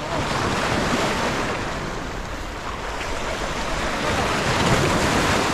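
Sea surf washing against a rocky shoreline, a steady rush that swells and eases with the waves.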